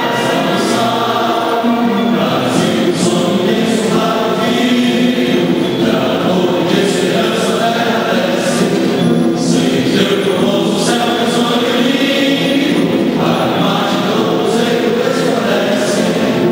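A choir singing an anthem with instrumental accompaniment, steady and full throughout.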